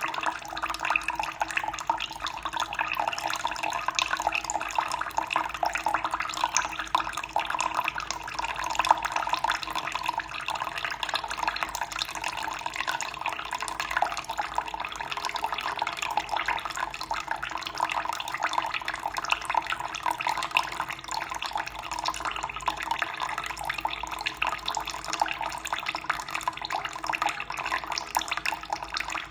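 Running water flowing steadily and without a break: a continuous splashing trickle.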